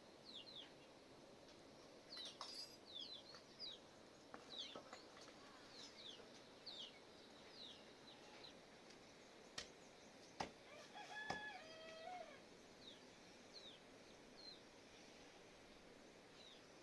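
Small birds chirping in short falling notes throughout, with a rooster crowing once in the distance about eleven seconds in. A few sharp clicks shortly before the crow.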